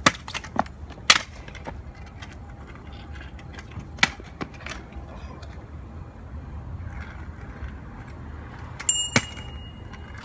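Razor kick scooter's small wheels rolling on asphalt, with several sharp clacks of the deck and wheels hitting the pavement during tricks. The handlebar bell rings briefly near the end.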